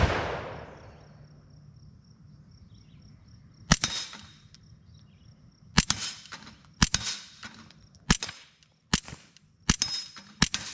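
Suppressed .22 LR pistol shots, a Smith & Wesson Victory with a Dead Air Mask suppressor firing subsonic rounds. There are about eight sharp cracks at an uneven pace, coming faster in the second half. The shots are fairly quiet and some are followed by a short metallic ring.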